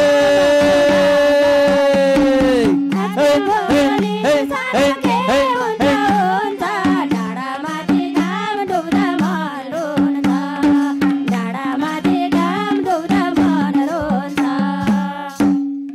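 Nepali dohori folk music played live: a long held sung note ends about three seconds in, then the melody carries on over a steady harmonium chord, with regular strokes on a madal hand drum and a tambourine.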